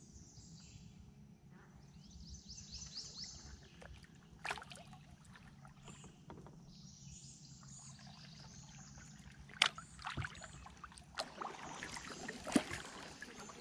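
Kayak paddling: water swishing and dripping off the paddle blades with each stroke. A few sharp knocks come over it, the loudest near the end.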